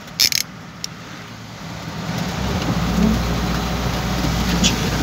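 Heavy rain on a vehicle, heard from inside the cab over the low hum of the running vehicle; the rain noise builds after about two seconds. A few short sharp clicks near the start.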